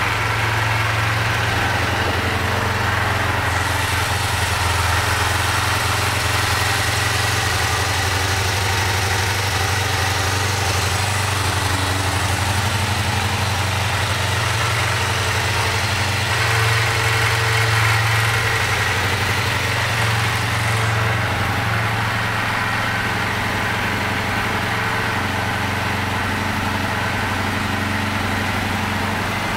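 A 2009 Kawasaki Ninja 500R's parallel-twin engine idling steadily.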